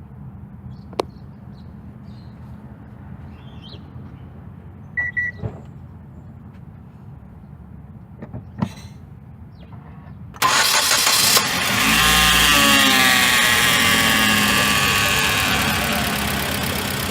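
A few clicks and a short beep, then about ten seconds in the 2012 Hyundai Genesis Coupe's 2.0-litre turbocharged four-cylinder cranks and starts, flares up and settles into a cold idle. A whine from the driver's side of the engine bay, which the owner says comes only from a cold engine, runs with the idle.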